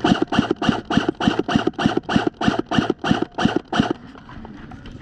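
Someone running: about four footfalls a second, each a heavy thump, stopping about four seconds in.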